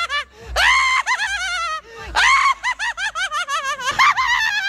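A man's high-pitched shrieking laugh, repeated in cycles: a long held shriek followed by a run of quick, warbling 'ha-ha' pulses. This happens twice, with a third shriek starting near the end.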